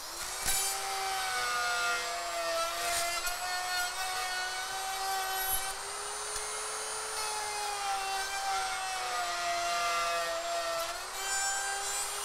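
Handheld electric router running steadily as its bit clears wood out between two routed cuts, making a quarter-inch-deep pocket. The motor's pitch dips slightly and recovers now and then as the bit takes load.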